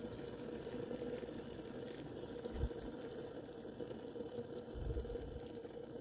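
Just-boiled water in a double-walled Cosori electric kettle, still bubbling faintly after the kettle has switched itself off at the boil. Two soft low thumps come about two and a half and five seconds in.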